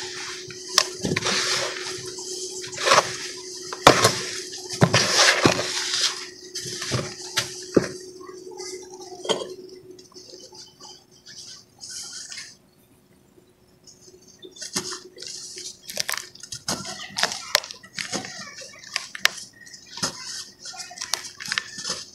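Hands crumbling damp cement in a plastic tub and pressing on a bucket-molded cement block: gritty crunching and crackling, busiest in the first half, dropping out briefly a little past the middle before starting again.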